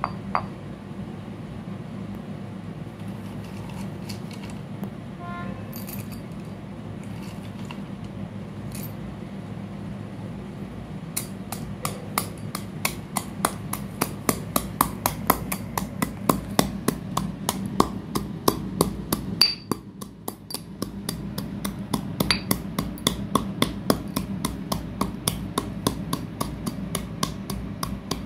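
Slate pencil pieces being crushed with a pestle in a stone mortar: a fast, even run of sharp, crunchy strikes, several a second. It starts about a third of the way in and pauses briefly a little past the middle.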